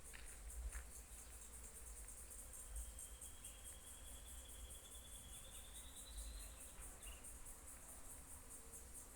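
A faint, steady, high-pitched chorus of insects pulsing rapidly, with a thin high whistle that comes in about three seconds in, rises slightly and stops about four seconds later.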